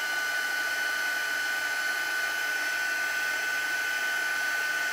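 Embossing heat tool running steadily, blowing hot air: an even rush of air with a steady high whine from its fan motor. It is melting silver embossing powder on a stamped paper sentiment.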